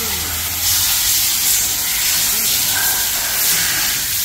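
A loud, steady hiss in a car service workshop, stepping up in level about a second in.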